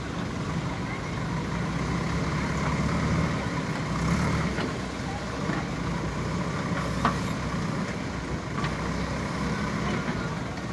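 JCB 3DX backhoe loader's diesel engine running steadily while the backhoe arm digs into coal, with a few sharp clanks, the loudest about seven seconds in.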